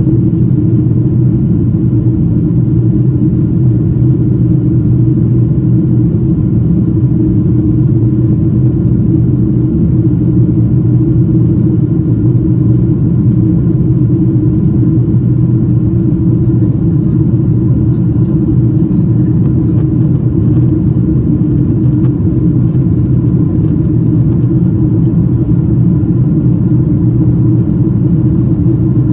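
Steady cabin noise inside a Boeing 777-200ER: a constant low rumble from the engines and the airframe, with a few faint steady tones above it and no change throughout.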